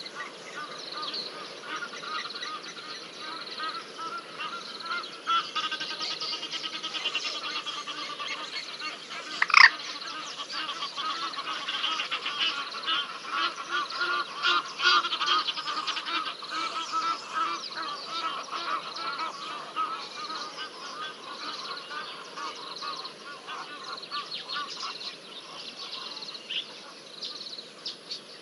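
Egyptian geese honking repeatedly in harsh, overlapping calls, with one loud sharp call about ten seconds in. A faint high chirp repeats about once a second behind them.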